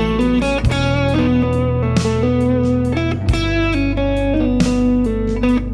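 Guitar solo lines in the A major pentatonic played over a backing track that loops A, E minor, G and D chords. The bass changes to a new chord about two-thirds of a second in and again just past three seconds.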